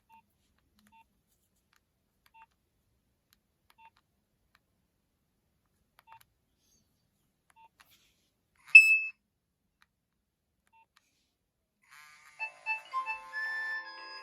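Nokia 2600 mobile phone: faint short keypad beeps at one pitch, spaced a second or two apart, with one louder, higher beep about 9 seconds in. A ringtone melody with several notes sounding at once starts near the end.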